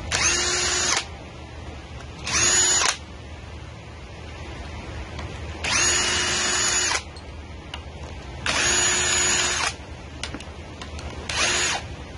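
Power drill run in five short bursts, each spinning at a steady pitch for about half a second to a second and a half.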